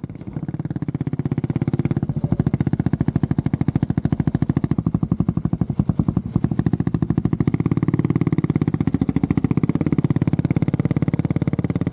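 Honda CB400SS's air-cooled single-cylinder engine running with an even, steady beat of firing pulses.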